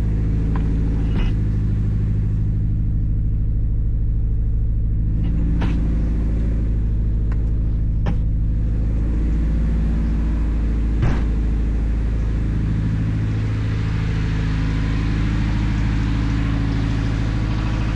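Car engine running at a steady speed with a heavy low rumble, with a few short clicks or knocks a few seconds apart.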